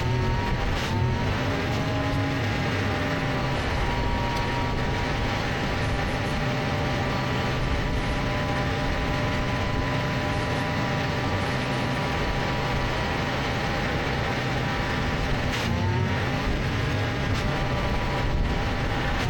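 Mini excavator engine running steadily with a pitched whine that dips and rises briefly about a second in and again near the end. A few sharp knocks break in, about a second in and twice near the end.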